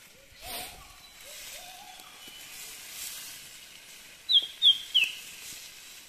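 A bird gives three quick, short chirps, each sliding down in pitch, over faint forest background noise.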